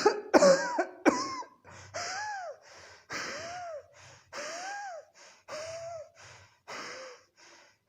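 A person's burst of harsh coughs, followed by about five drawn-out, wheezing gasps for air, each rising and falling in pitch, with short breaths between them. This is coughing that ends in breathlessness, like an asthmatic attack.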